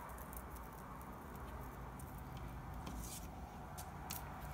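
Faint handling sounds: scattered light ticks and rustles as a paper cut-out and a bottle of white glue are handled, over a low steady room hum.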